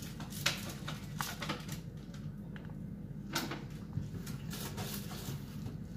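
Cooked corn kernels being stripped off the cob by hand: scattered soft clicks and taps as kernels snap loose and drop into a container, over a steady low hum.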